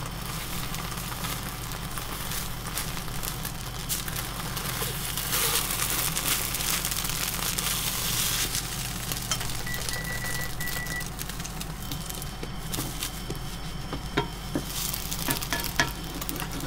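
Beaten egg sizzling in a nonstick frying pan while a rolled omelette (tamagoyaki) is turned and pressed with a plastic slotted spatula. The sizzle swells for a few seconds midway, and a few sharp clicks of the spatula against the pan come near the end.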